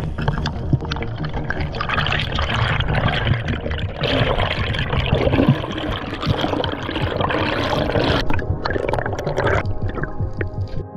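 Underwater water noise: air bubbles rushing and gurgling around a camera held below the surface.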